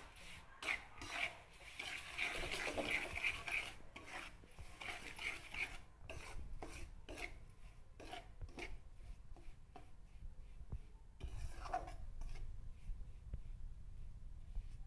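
Spoon scraping and stirring coarse-ground moong dal as it roasts in ghee in a metal kadhai: repeated rasping strokes against the pan, close together for the first six seconds, then sparser.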